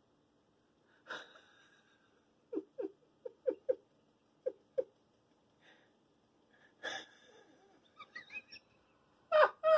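A Miniature Pinscher barking: a few short, faint yaps through the middle, then loud, rapid barking starting near the end.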